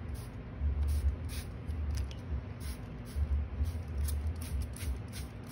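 Hand-held plastic spray bottle misting the inside of a glass terrarium: a run of quick, short hissing squirts, about two a second.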